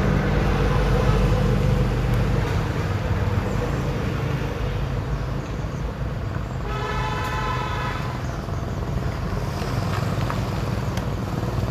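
Vehicle engine running steadily on the road, with a horn honking once for about a second around the middle.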